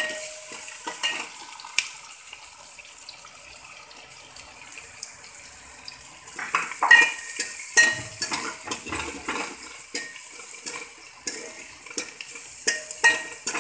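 Chopped onions sizzling in hot ghee in a metal kadai. A metal ladle stirs them, scraping and clinking against the pan, most busily in the second half.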